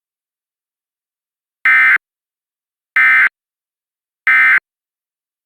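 Emergency Alert System end-of-message data tones: three identical short, buzzy bursts of digital data, each about a third of a second and about a second and a quarter apart, with silence between them. They signal the end of the alert.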